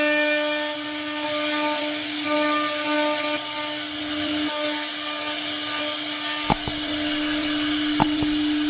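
CNC router spindle running with a steady whine while the bit cuts into wood, higher tones coming and going as the cut changes. Two sharp clicks sound near the end, about a second and a half apart.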